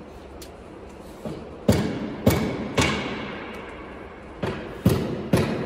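About seven irregular knocks and bumps against the laser cutter's sheet-metal cabinet as hands work among the cables inside it, each with a short ring. They come in two clusters, one after about a second and one near the end.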